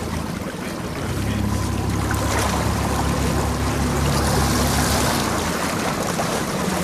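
Boat outboard motor running steadily, with a rushing hiss of water that swells from about two seconds in until past the five-second mark.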